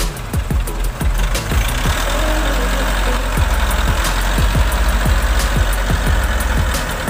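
Children's music with a steady thumping beat, mixed with the sound of a running machine engine; a dense rushing noise joins about a second and a half in and stops near the end.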